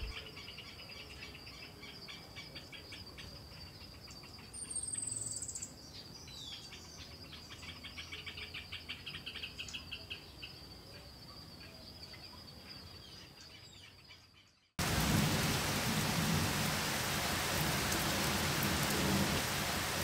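A steady high insect trill runs under a bird's quick run of chirping notes, which swells and fades midway. About fifteen seconds in it cuts suddenly to heavy rain falling steadily, much louder.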